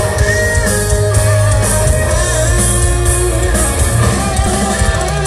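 Loud amplified live rock music from a band on an outdoor stage, with guitar prominent over a heavy bass, heard from far back in the crowd.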